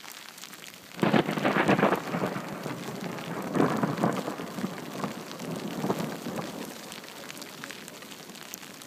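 Thunderclap: a sudden, loud crackling crack about a second in, then rolling rumbles that swell twice more and die away over several seconds.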